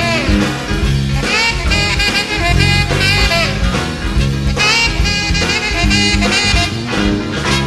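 Instrumental break of a 1950s New Orleans rhythm-and-blues record: a saxophone-led band with a steady swing beat, with no singing.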